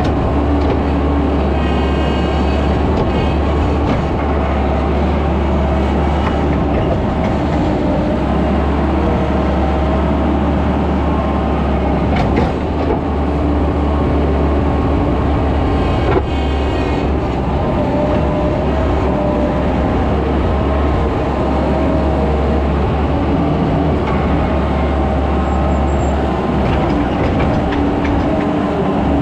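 Skid steer engine running steadily with a loud low drone. A brief high whine comes about two seconds in and again around sixteen seconds.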